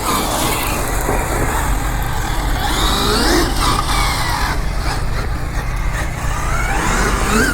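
Losi 6IX RC car driving on a track, its motor whining up and falling back in pitch several times as the throttle is worked, over a steady rumble of running noise.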